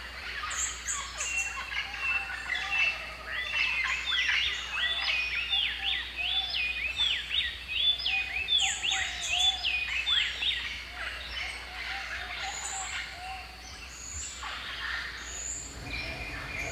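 Several birds calling together, led by a rapid run of sweeping whistled notes, about two a second, with short high chirps and a lower warbling call underneath. The calling is busiest in the middle and thins to scattered chirps near the end.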